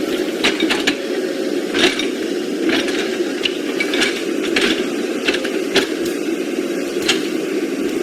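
Radio-controlled model vehicle's small electric motor and gearbox whirring steadily, with irregular clicks and knocks of plastic parts.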